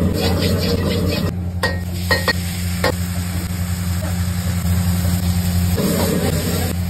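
Vegetables sizzling in a wok being stir-fried over a high-flame gas burner, over a steady low hum. A metal ladle clinks against the wok several times about one and a half to three seconds in.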